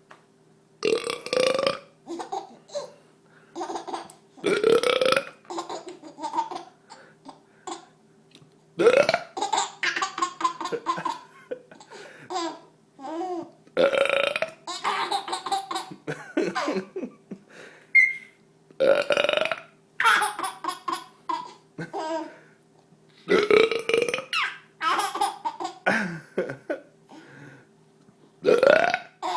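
A man's loud burps, one roughly every five seconds, helped along by a can of soda, with a baby laughing at them between burps.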